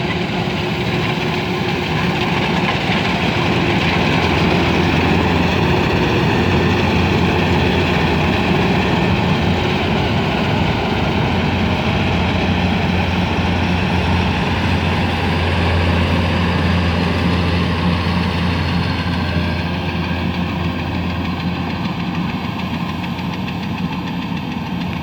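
Engine of a rice-harvesting machine running steadily with a low hum and mechanical clatter, growing a little louder a few seconds in and easing off again near the end.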